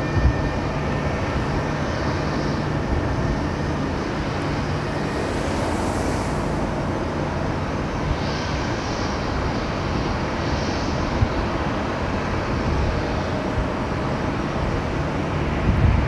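Distant jet engines of a Boeing 737 airliner running steadily as it rolls along the runway, an even rushing noise with a low hum underneath.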